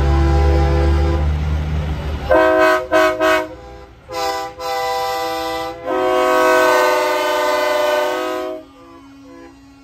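Semi truck air horns blasting as big rigs pass: the deep rumble of a diesel tractor under a sounding horn, then three quick blasts, a longer blast and a long held blast that cuts off suddenly. Faint toots from further trucks follow.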